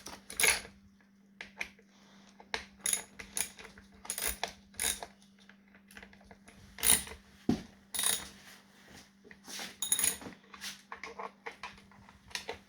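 Metal hand tools clinking and clicking irregularly against the scooter's bolts as they are tightened, over a faint steady hum.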